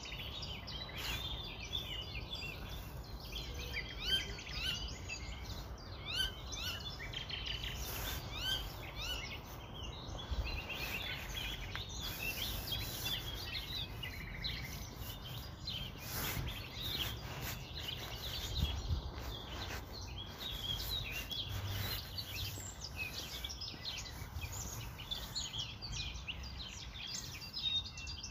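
Birds chirping in many short, quick calls over a low steady rumble, with a few brief clicks.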